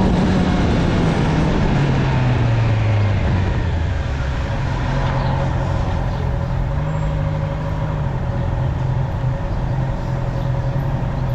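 Honda CB650R's inline-four engine dropping in pitch as it comes off a rev, then running steadily with small rises and falls in speed.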